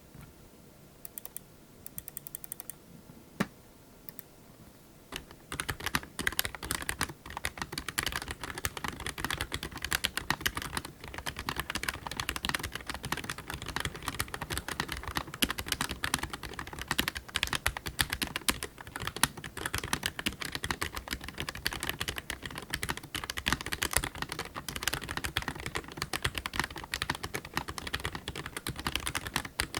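Typing on an Eweadn MK100 mechanical keyboard with white switches. A few scattered key clicks come first, then fast, continuous key clacks from about five seconds in.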